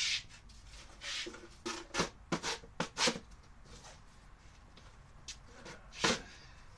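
Handling noises as a pedestal fan and other clutter are moved by hand: a quick run of short rustles and scrapes with a few light knocks over the first three seconds, then one more near the end.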